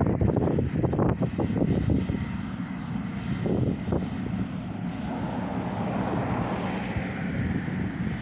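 Wind gusting on the microphone for the first couple of seconds, then a distant engine drone that swells and fades away, like a passing aircraft.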